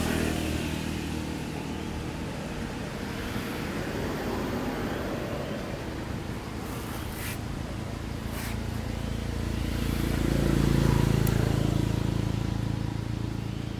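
A motor vehicle's engine running nearby with a steady low hum, growing louder about ten seconds in and then fading, as it passes by.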